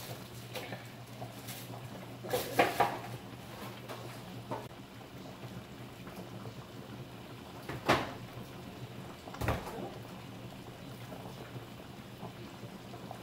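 Kitchen clatter: a cluster of knocks about two and a half seconds in, a sharp knock near eight seconds and a heavier thud about a second and a half later, over a steady low hum.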